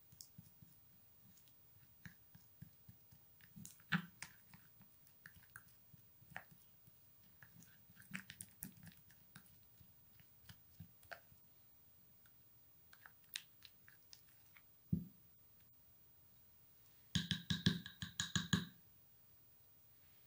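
Small plastic spoon stirring a thick paste in a small glass bowl: soft, irregular scrapes and clicks against the glass. Near the end comes a quick run of taps on the bowl that make the glass ring briefly.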